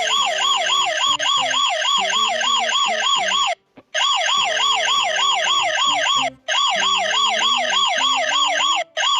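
Police car siren in a fast yelp, its pitch sweeping up and down about five times a second. It drops out briefly three times: once for a moment about a third of the way in, and twice more very briefly later on.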